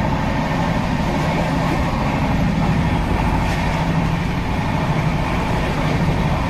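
Steady rumbling running noise of a moving train, heard from inside a crowded sleeper coach.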